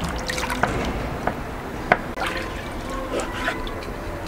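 Hands washing eggs in a plastic bowl of water: water splashing and dripping, with a few sharp knocks as the eggs touch, the loudest about two seconds in.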